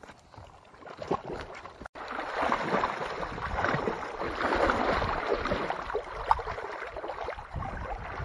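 Water splashing and sloshing as several people wade chest-deep through a muddy pond, starting abruptly about two seconds in and running as a dense, irregular churning; the opening is quieter, with a few scattered light knocks.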